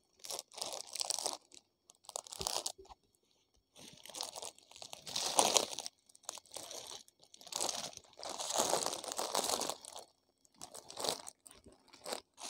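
Clear plastic packets around suits crinkling as they are handled and shifted, in several bursts with short gaps between them.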